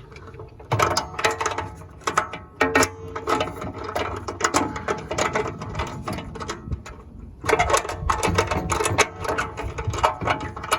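Metal parts of a railroad crossing signal light clicking, scraping and rattling as the light is worked up into place, a struggle to get it up. The clatter runs in quick irregular clicks with some metallic ringing and eases briefly about seven seconds in.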